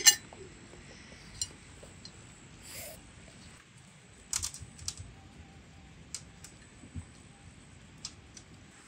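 Scattered light clicks and taps of a knife and cutlery against plates and melon, with one sharper knock right at the start.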